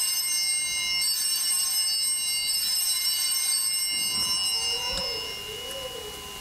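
Altar bells rung at the elevation of the chalice after the consecration at Mass. Several high tones ring together and slowly fade away.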